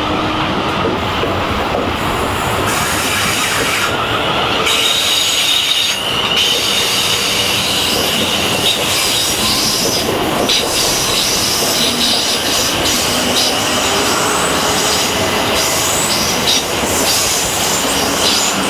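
South Western Railway electric multiple unit running past on a curve: continuous wheel and rail noise with a high-pitched wheel squeal, and a few clicks from the wheels partway through.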